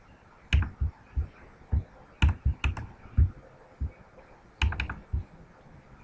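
Clicks and taps of a computer mouse and keyboard, about a dozen irregular strokes with quiet gaps between them, some with a low knock.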